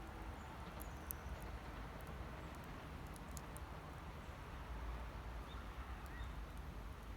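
Wood campfire crackling, with scattered small sharp pops over a steady low rumble.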